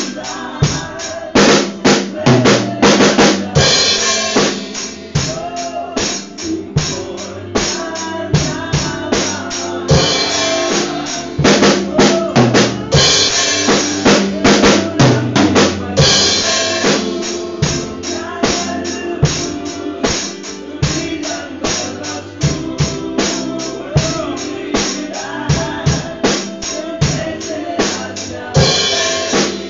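Power drum kit played to a steady beat of kick drum, snare and cymbals over a recorded song's backing track, with bursts of loud cymbal crashes several times.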